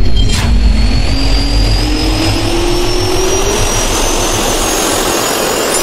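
Jet engine sound effect: a turbine spooling up, two whines rising slowly in pitch over a loud, steady rush of air, cut off suddenly at the end. A brief swish comes about half a second in.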